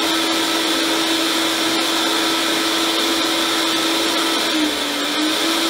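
Vitamix blender motor running steadily, blending a thick butternut squash cream filling, with its whine sagging briefly in pitch about five seconds in.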